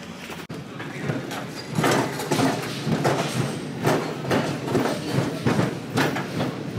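Orange flatbed store cart being pushed along a hard floor, its load of PVC conduit pipes and fittings rattling and knocking about two to three times a second.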